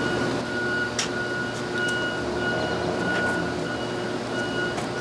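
Industrial plant background noise: a steady machinery hum with a high-pitched tone sounding on and off in uneven stretches, and a few sharp metallic clicks.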